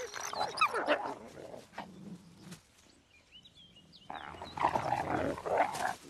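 Wolves growling and whining in a dominance and submission scuffle, one lying on its back in submission under another. A rough burst of growling with a few short high whines comes first, then after a brief lull a second burst from about four seconds in.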